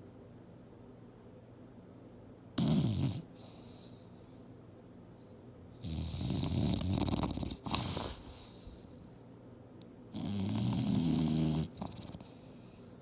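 English bulldog snoring in her sleep: three snores, a short one about two and a half seconds in, a long one of about two seconds near six seconds in, and another of about a second and a half just after ten seconds.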